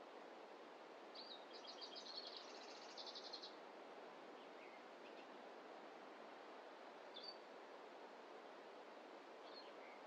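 A small songbird gives a fast, high trill of rapidly repeated notes lasting a couple of seconds, then a few short, high single chirps, over a steady faint background hiss.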